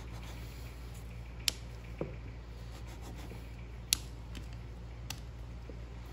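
Small plastic plunger star cutter clicking as its plunger is pressed to push star shapes out of fondant: two sharp clicks about two and a half seconds apart and a few fainter taps, over a steady low hum.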